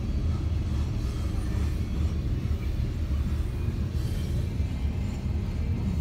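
Covered grain hopper cars of a freight train rolling past on the track, a steady low rumble.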